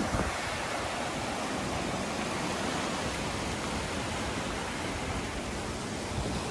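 Steady, even rushing wash of ocean surf.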